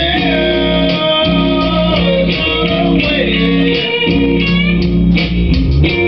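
Electric guitar played through a Line 6 Spider Valve amp, a riff of sustained notes with string bends over a steady low bass part.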